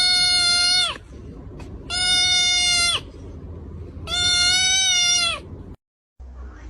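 An animal crying out three times, each a long call held at one steady pitch for about a second, with pauses of about a second between them.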